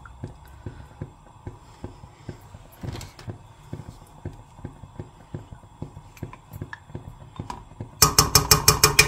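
A rapid run of sharp, evenly spaced clicks, about ten a second, lasting a little over a second near the end, over faint scattered ticks before it.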